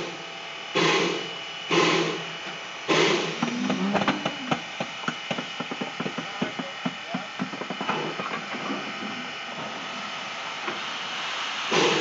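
Bridgton & Saco River #7 steam locomotive exhausting in a few chuffs about a second apart, then a run of clanks and rattles from the narrow-gauge cars' couplers and running gear as the train eases along slowly; the chuffs start again near the end.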